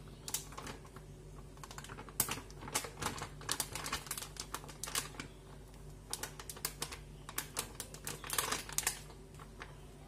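Green plastic measuring cup scooping flour and knocking against a stainless steel mixing bowl: a string of irregular light clicks and taps, coming in clusters.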